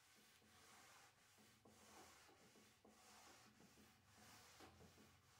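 Faint, rhythmic scrubbing of a green Scotch-Brite scouring pad with soapy water over a wooden tabletop's finish, wet-sanding off paint, with strokes a little under two a second.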